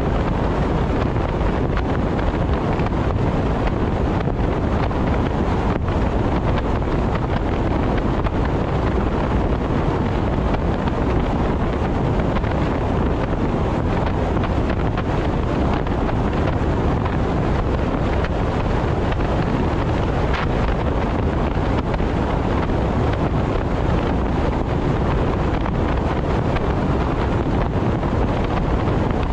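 Steady rumble of tyre and wind noise from a car cruising at expressway speed.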